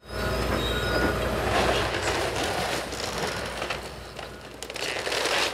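A Hitachi excavator's diesel engine runs while its bucket tears into the wooden wall of a house: timber cracking and crunching as boards break away, with thin high squeals in the first two seconds.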